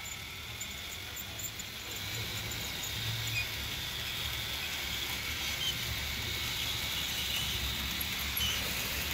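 Model Roco V90 diesel locomotive running along the track with its tank wagons, giving a steady low hum and hiss that slowly grows a little louder. It is the loud running noise that the owner could not fix and puts down to the locomotive itself, not to the rails, which are clean.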